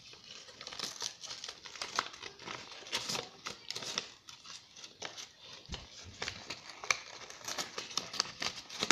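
Handmade paper surprise packet being opened by hand: irregular crinkling and rustling of paper, with some tearing.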